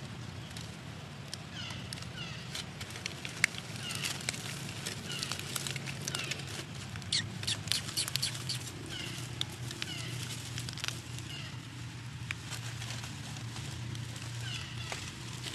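Dry leaves crackling and rustling in irregular bursts as a baby macaque handles and picks through them, thickest in the middle. Short high chirps sound here and there over a low steady hum.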